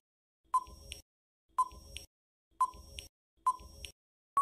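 Countdown-timer sound effect: four short beeps, about one a second, each followed by a fainter click.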